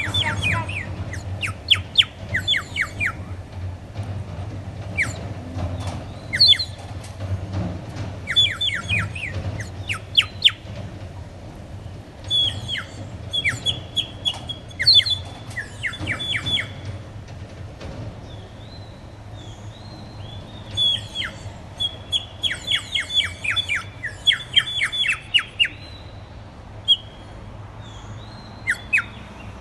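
Water-filled clay bird whistle blown in bursts of quick, warbling chirps, several trills in a row with short pauses between, sounding like a small songbird. A steady low hum lies underneath.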